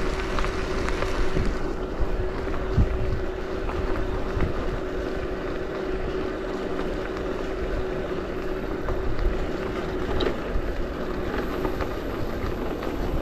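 E-bike riding along a gravel path: tyres crunching over the gravel with small knocks from bumps, and wind buffeting the handlebar-mounted GoPro's microphone. A steady hum runs underneath and fades out about ten seconds in.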